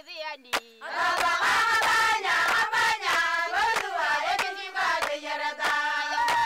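A group of women singing together and clapping their hands in a steady rhythm, about two claps a second. A single voice is heard briefly at the start before the whole group comes in about a second in.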